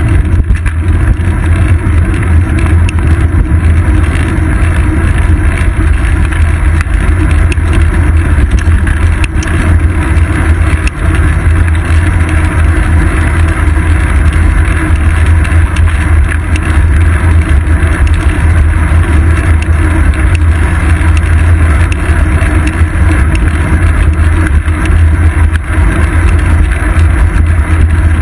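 Steady, loud rumble of wind and road vibration on a seat-post-mounted GoPro Hero 2 as the bicycle rolls along.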